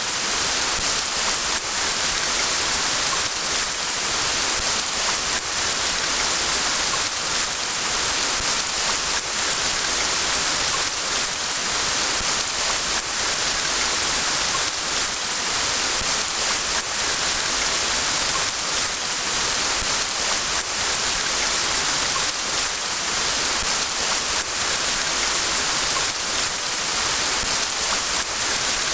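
Steady, even rain: a constant hiss of many drops, with faint separate drop hits scattered through it.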